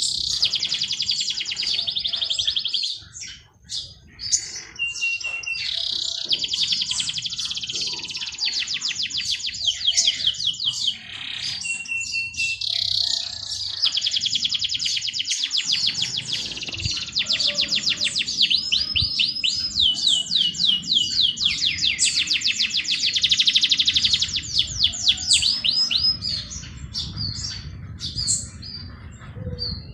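Songbirds singing long, rapid, high-pitched trilling phrases almost without a break, with a few short steady whistled notes between them and a brief lull a few seconds in.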